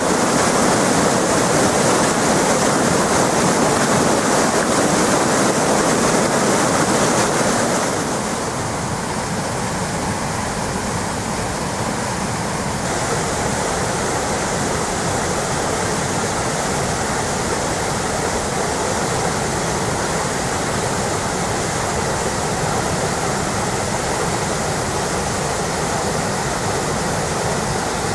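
Rain-swollen creek in flood, muddy water rushing and churning in a steady, loud rush. It gets a little quieter about eight seconds in.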